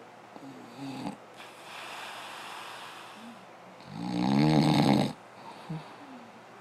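Snoring: a long noisy breath, then a loud buzzing snore about four seconds in that lasts about a second.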